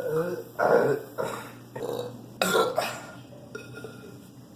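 A person burping several times in quick succession, about five loud belches in the first three seconds, then quieter.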